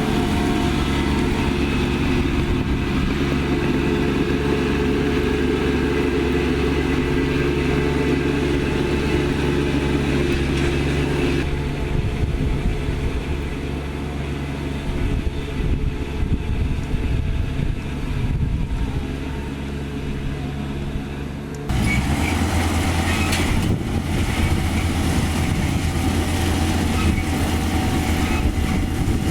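Kubota DC-35 combine harvester's diesel engine running steadily. The engine note thins out a little before halfway, then changes sharply about 22 seconds in to a steadier, deeper hum.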